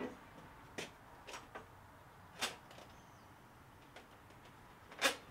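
A few light, scattered metal knocks and clicks as the battery stack's steel end plate and metal-cased Nissan LEAF cell modules are handled and shift against one another. The two loudest knocks come about halfway through and near the end.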